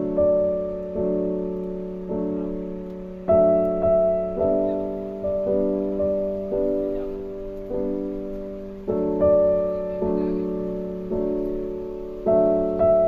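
Background piano music: slow chords struck about once a second, each fading before the next.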